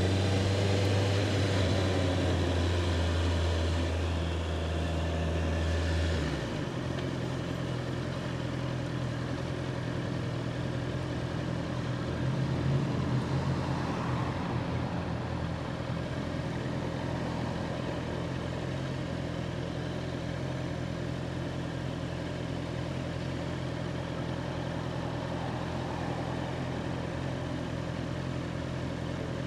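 A Honda CBR650R's inline-four engine running, heard from the bike. Its note falls away about six seconds in, then runs steady and even for the rest.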